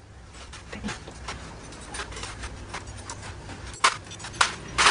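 Scattered light clicks and clinks of hand work on a motorcycle's metal parts, with three sharper clicks near the end.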